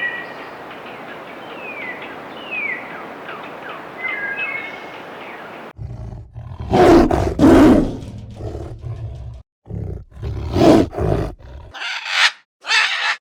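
Birds chirping over a steady outdoor hiss, then, about six seconds in, a large animal roars loudly in several separate blasts, with shorter rough calls near the end.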